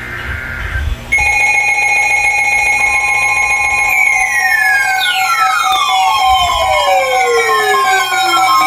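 Emergency Alert System broadcast: a data burst of two warbling tones ends about a second in and a steady alert tone starts. From about four seconds in, several falling pitch sweeps pile up over the steady tone, each sliding down over a few seconds.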